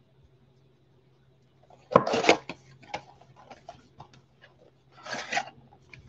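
Cardboard blaster box of baseball cards handled and torn open by gloved hands: a loud rustling tear about two seconds in, light scrapes and clicks, then another tearing rasp about five seconds in.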